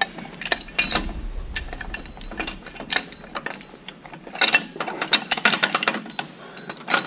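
Steel hitch pin and washers being worked into the holes of a steel quick hitch and tractor lift arm: a run of light metal clicks and scrapes, thickest about four to six seconds in.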